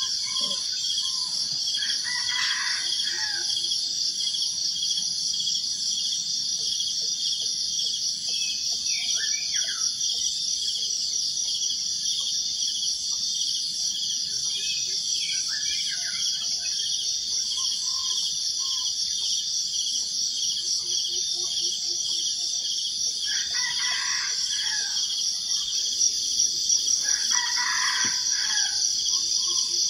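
Insects keep up a steady, high, fast-pulsing trill throughout, while a rooster crows several times, most clearly twice near the end.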